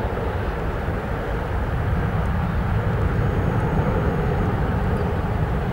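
Jet engines of a Cathay Pacific Airbus A330-300 (Rolls-Royce Trent 700 turbofans) heard as a steady low rumble as the airliner climbs away at takeoff power.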